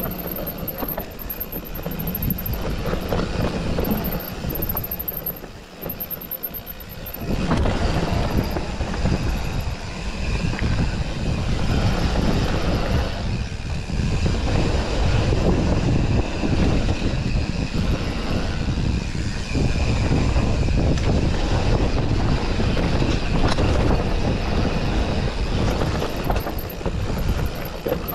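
A mountain bike ridden fast along a dirt singletrack: tyres rolling over dirt and roots, the bike rattling, and wind rushing over the microphone. The noise grows clearly louder about seven seconds in, as the pace picks up.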